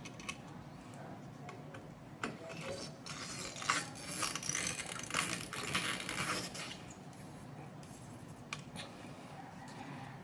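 Screwdriver working the spring-loaded screws on a graphics card, with small metallic clicks and scraping, busiest between about two and seven seconds in.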